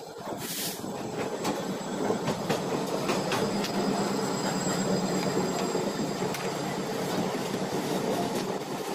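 Passenger train running on the rails, heard through an open coach door: a steady rumble with scattered clicks of wheels over rail joints and a faint high wheel squeal.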